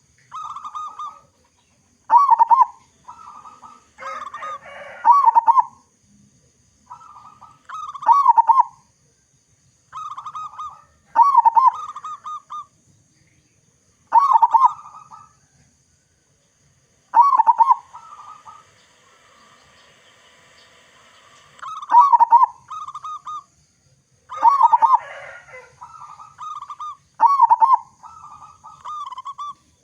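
Local zebra dove (perkutut) cooing its staccato song: short phrases of quick notes with a dipping pitch, repeated every two to three seconds, with a brief rasping noise twice among them.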